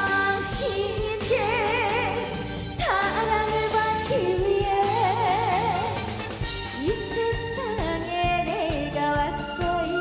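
A woman singing a Korean trot song live into a microphone over a backing band track, holding notes with a wide vibrato.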